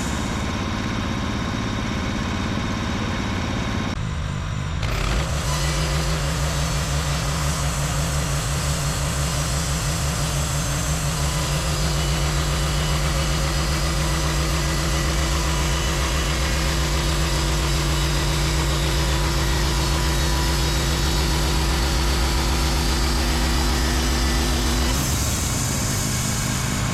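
A portable band sawmill's engine running steadily. About five seconds in it picks up to a louder, steadier note, and it drops back near the end.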